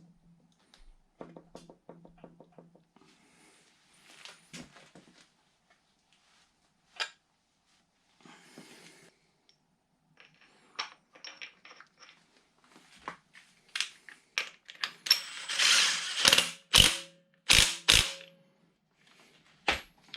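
Hand tools fitting and fastening an engine's crankshaft pulley: a socket ratchet clicking in quick runs, with scattered metal clinks and knocks that grow louder and sharper in the last third.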